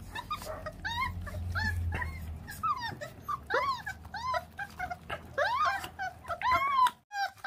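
Young puppies tearing at raw meat on the bone, giving many short, high whimpers and whines as they chew. Sharp clicks of bone cracking between their teeth come through between the whimpers.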